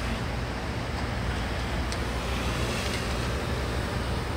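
A vehicle engine idling: a steady low rumble.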